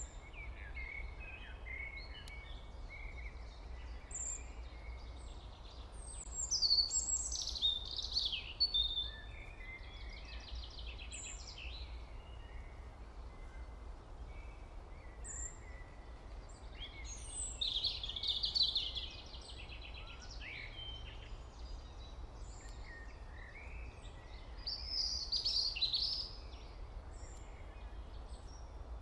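Birds chirping and singing in short phrases, with three louder stretches of song, over a steady low hum.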